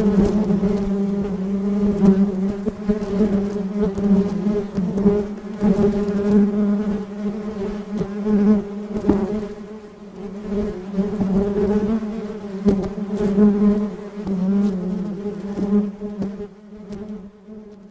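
Bees buzzing: a continuous wing drone that wavers in pitch and swells and dips in loudness, fading near the end.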